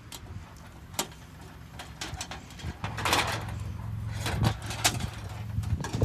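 Sharp clicks and knocks of plastic and metal television parts being handled and pulled apart, with a short scraping rustle about three seconds in and a low hum underneath.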